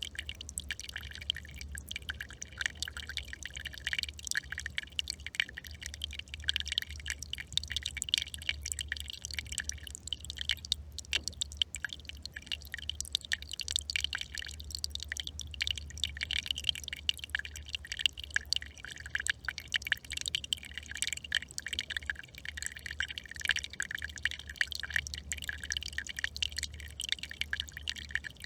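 Small brook trickling: a continuous, irregular patter of drips and little splashes over a steady low hum.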